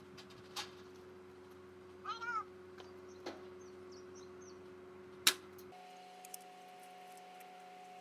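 One sharp pellet rifle shot about five seconds in, with no bang from the homemade potassium perchlorate, carbon and sulfur target mix, which fails to detonate. Before the shot come a few small handling clicks and a short wavering animal call.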